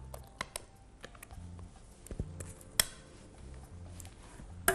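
A spatula scraping and tapping against a glass mixing bowl and a metal Bundt (Gugelhupf) tin as thick cake batter is scraped in and spread smooth: scattered light clicks and scrapes, with one sharper tap about three seconds in.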